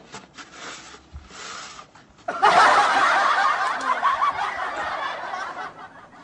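Laughter: a burst of snickering and chuckling that comes in suddenly a little over two seconds in and lasts about three seconds.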